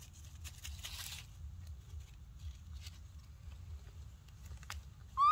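Light crackling and rustling of dry leaves and dirt as a baby monkey moves in its leaf-lined burrow, over a steady low rumble. Right at the end comes one short, rising, high call from the baby monkey, the loudest sound.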